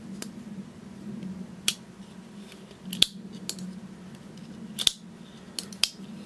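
Hogue EX1 button-lock folding knife being worked, its blade and button lock snapping with a series of sharp metallic clicks, about seven of them at uneven intervals.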